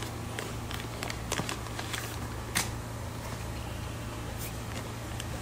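Handling of a styrofoam shipping cooler and the plastic fish bags inside it: scattered clicks, creaks and crinkles, the sharpest about two and a half seconds in, over a steady low hum.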